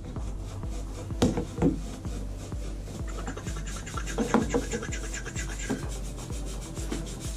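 Copper pipe and fittings being handled and pushed together: a few metallic clinks and knocks about a second in and again near the middle, with rubbing and scraping of metal in between. Background music with a steady beat runs underneath.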